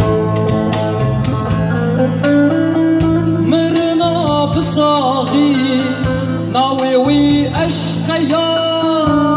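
Band music from a Kurdish folk song: an instrumental passage between verses, with a plucked-string accompaniment under an ornamented, wavering lead melody that comes in a few seconds in.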